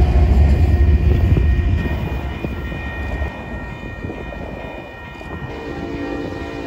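A diesel freight locomotive rumbling past and fading away, then the air horn of an approaching Union Pacific freight led by SD70ACe 8932 sounding from a distance a little over five seconds in, a steady chord of several notes.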